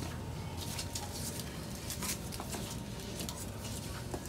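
Light taps, clicks and rustles of paper-wrapped firecrackers being set down and lined up by hand on a wooden floor.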